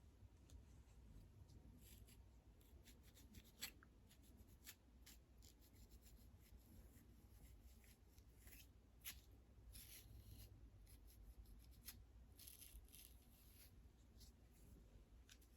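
Faint, dry fingernail scratching through hair on a flaky, dandruff-covered scalp, close to the microphone. Short scratch strokes come at irregular intervals.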